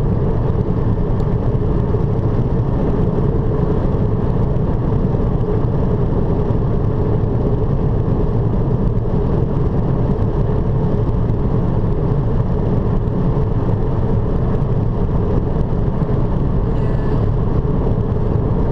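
Steady road noise of a car driving at speed: engine, tyres and wind blending into one constant rumble with a faint steady hum.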